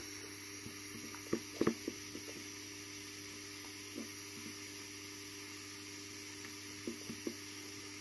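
A soldering iron tip pressed into clear plastic and drawn along a crack to plastic-weld it, a faint steady hiss and hum with a few small soft clicks.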